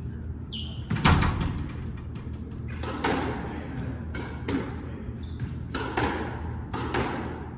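Squash ball being hit back and forth in a rally: sharp racket strikes and ball hits on the court walls, each echoing in the enclosed court. The loudest hit comes about a second in, then hits follow roughly every second or so.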